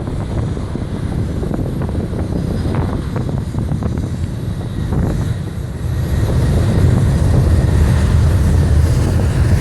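Jet airliner engines running at takeoff power during the takeoff roll, a steady low rumble that grows louder about six seconds in.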